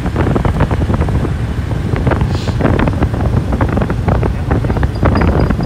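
Wind buffeting the microphone with a constant low rumble of a moving motorbike and road traffic.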